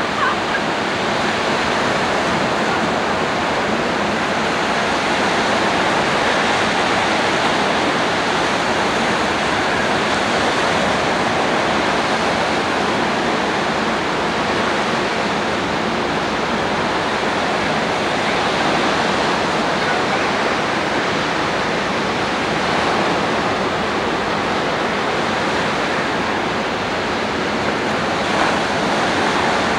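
Ocean surf breaking and washing onto the beach: a steady rush of noise with slight swells.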